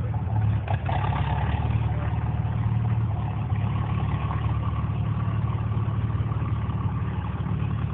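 Antique farm tractor engine running steadily under load as it drags a weight sled in a tractor pull, heard as a continuous low engine drone.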